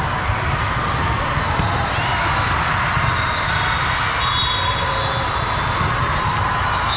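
Steady din of a busy sports hall at a volleyball match: many voices blending together, with volleyballs bouncing on the hard floor and short squeaks.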